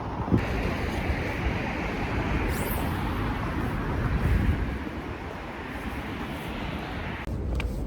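Steady road traffic noise. The sound changes abruptly just after the start and again near the end.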